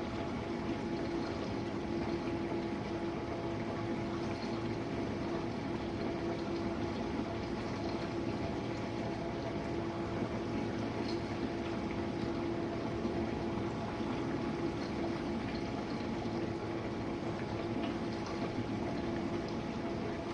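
Jenn-Air dishwasher running its rinse cycle: a steady pump hum with water spraying and splashing inside the tub.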